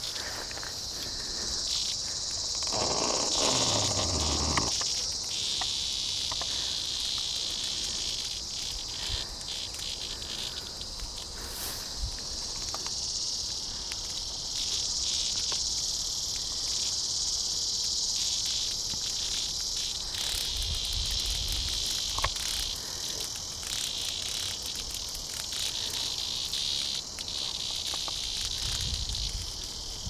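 Cicadas buzzing: a continuous high-pitched drone that swells and fades a little. About three seconds in, a brief low sound slides downward in pitch under it.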